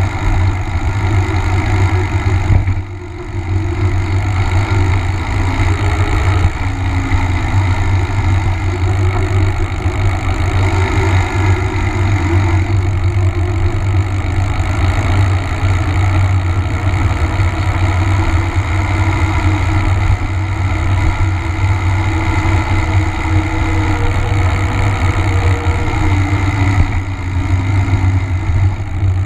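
Steady wind noise buffeting the microphone of a camera on a moving mountain bike, mixed with the hum of knobby tyres rolling on asphalt. It dips briefly about three seconds in.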